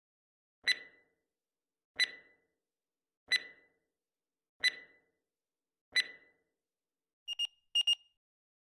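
Countdown timer's electronic alert tones: five short beeps about 1.3 seconds apart, each with a quick fading ring, as the last seconds tick down. Near the end the end-of-timer alarm starts, two quick pairs of a different, clipped beep.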